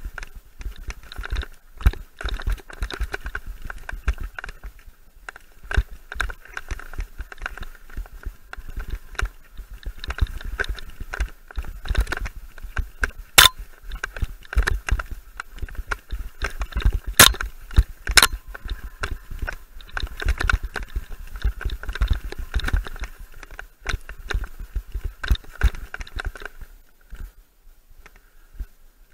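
Mountain bike rattling and thudding over a rough dirt singletrack, with sharp knocks from the frame and drivetrain and scrub brushing past. It quietens a couple of seconds before the end as the trail opens out.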